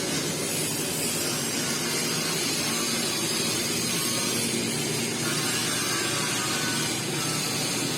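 Steady mechanical noise with a constant hiss, unchanging in level.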